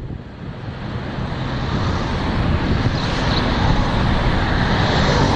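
Road noise from a moving car, heard from inside it: a steady rumble with tyre hiss that grows gradually louder.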